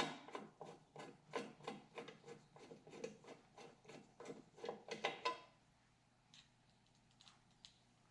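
Small screws being driven with a hand screwdriver into the headlight retainer hardware: a quick, regular run of clicks, about four a second, that stops after about five seconds, followed by a few faint ticks.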